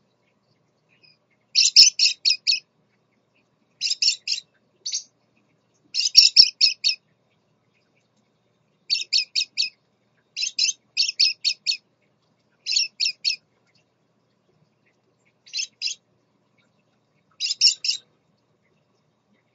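Scarlet-chested parakeets chirping: short bursts of rapid, high chirps, several notes to a burst, repeated every second or two with brief pauses between.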